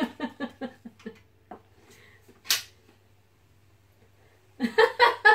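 A woman laughing in quick repeated bursts for about the first second. A short breathy burst comes about halfway through, and a louder fit of laughter comes near the end.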